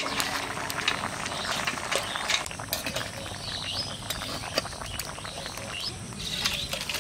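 Irregular ticks and pops from a pot of lentil and vegetable stew bubbling, with birds chirping in short calls. Near the end the stew is poured from the aluminium pot into a steel bowl, with a low sloshing.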